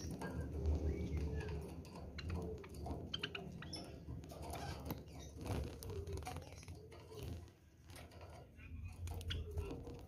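Java sparrows in an aviary giving short chirps and clucking calls, mixed with wing flutters as they fly between perches.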